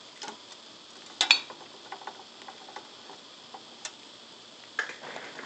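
Small clicks and light ticks as a circuit board is shifted on an IR BGA rework station's board support, with one sharper click a little over a second in and another near four seconds, over a faint steady hiss.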